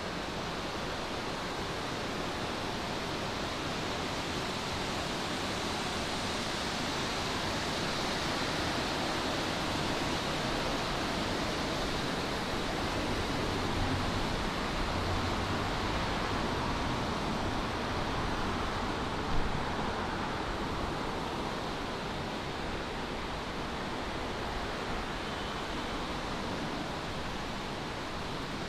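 Steady, even rushing noise of outdoor ambience with no distinct events, broken once by a single brief knock about two-thirds of the way through.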